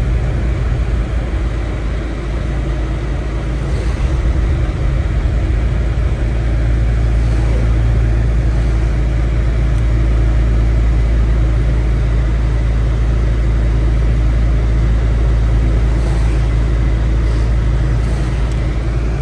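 Steady low rumble of a car driving, heard from inside the cabin, with tyre noise from a wet, slushy road; it gets a little louder about six seconds in.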